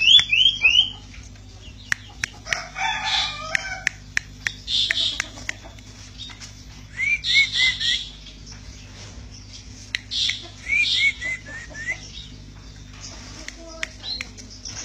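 Cipoh sirtu (common iora) singing loud, rapid chattering 'petetan' phrases in bouts every couple of seconds, each a quick run of rising notes, with sharp clicks between the bouts.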